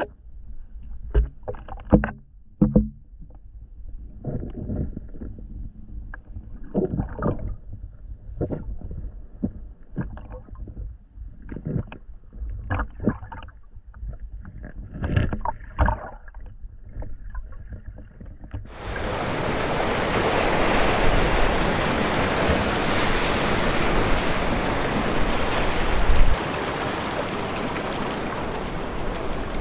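Muffled underwater sound from a diving camera: a low rumble with scattered knocks and sloshing bursts. About two-thirds of the way through it cuts suddenly to a steady, louder rush of ocean surf and wind at the shoreline.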